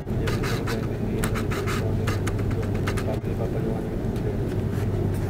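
Steady drone inside an Airbus A330-300 cabin on the ground before takeoff, with a constant low hum from the engines and air system. Scattered small clicks and rustles in the first three seconds or so.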